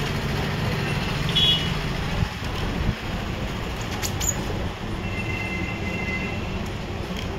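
Light clicks and knocks of an inverter's circuit board being handled and drawn out of its metal case, three or so sharp clicks spread over a few seconds, over a steady low rumble of background noise. A short high tone sounds about a second and a half in, and faint high tones come again about five seconds in.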